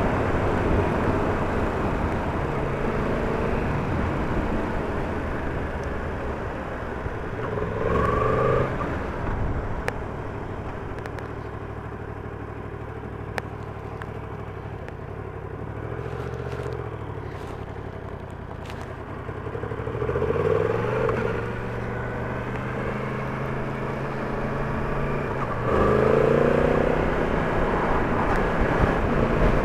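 Yamaha MT-10 motorcycle's inline-four engine running on the move, rising in pitch as it accelerates about a quarter of the way in, again past the middle and near the end, with a lower, quieter stretch between.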